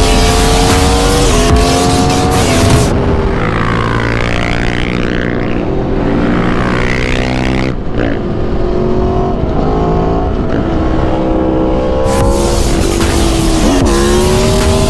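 Sport motorcycle engine pulling hard, its pitch climbing and then dropping back at each upshift, heard over wind rush on the onboard microphone; the wind drops away in the middle stretch, where the engine sounds more muffled.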